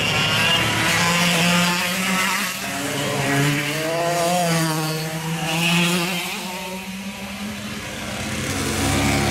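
Several go-kart engines running as karts pass one after another through a corner, their pitch rising and falling as they come through.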